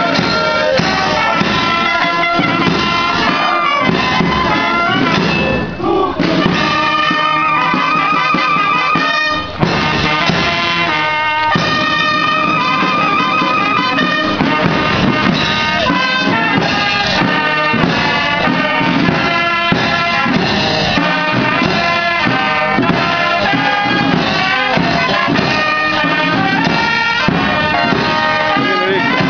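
Military brass band with drums playing, trumpets and other brass carrying the tune over a steady beat. The music drops out for a moment twice, about six and nine and a half seconds in.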